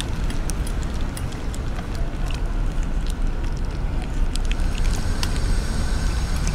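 A plastic pouch of wet cat food being squeezed and kneaded by hand, giving scattered soft crinkles and ticks over a steady low rumble.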